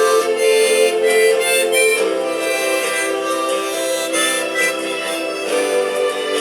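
Accordion (gaita) playing an instrumental passage: a melody line over sustained reedy chords, with the chord changing about two seconds in and again near the end.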